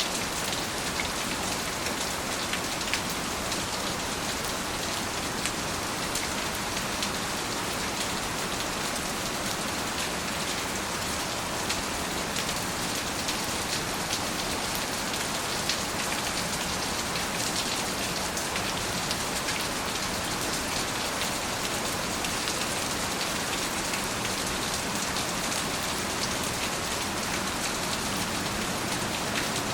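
Steady rain falling, an even hiss with many fine drop ticks, no thunder.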